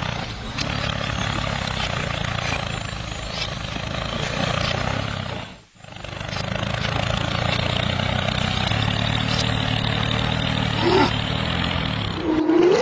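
A tractor-style engine sound running steadily with a low drone under a dense hiss. It drops out for a split second about six seconds in, then carries on, with a brief rising tone near the end.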